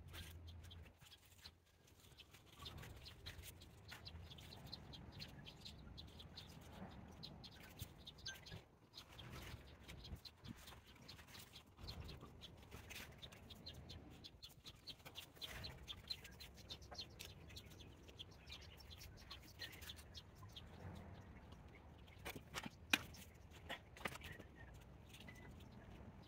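Faint rustling and crunching of potting soil as gloved hands press it around a basil plant in a pot, with many small clicks and one sharper tap near the end.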